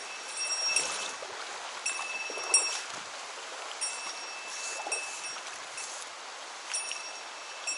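Mountain stream flowing steadily, with a small metal bell ringing in four short jingling spells, each a second or so long.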